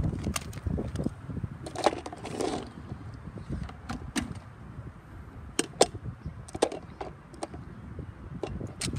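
A handheld plastic reacher-grabber gripping a toy mini trash bin, lifting and tipping it over a plastic wastebasket and setting it back down, making scattered sharp plastic clicks and clacks.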